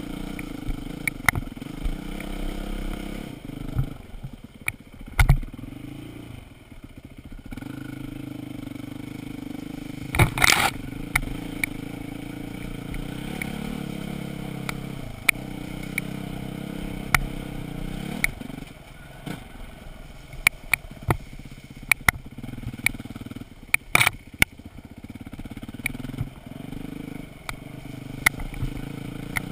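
Enduro dirt bike engine running at low revs, its note dropping away for a few seconds between about four and seven seconds in. Frequent sharp knocks and clatter from riding through tall grass over rough ground, with heavier thumps about five and ten seconds in and again near the end.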